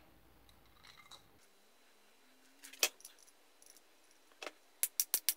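Sharp metal-on-metal clinks as a ball bearing is driven onto the grinder's steel shaft by hand. There are two single taps, then a quick run of rapid taps near the end.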